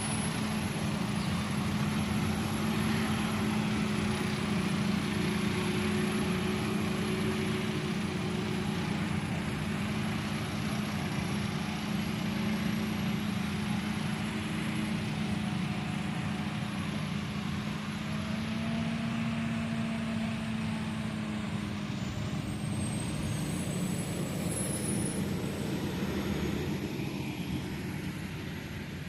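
Heavy diesel harvest machinery running steadily under load, a constant engine drone with a noisy rush over it that eases slightly near the end.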